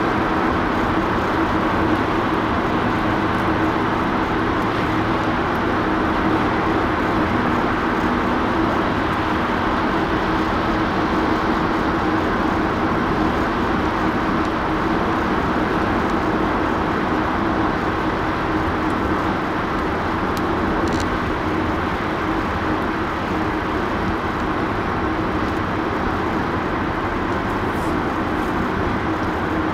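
Steady road noise of a car driving in highway traffic: a constant rush of tyres and engine with a low steady hum.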